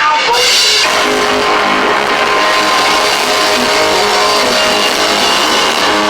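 Rock-blues band playing, with drum kit and electric guitar.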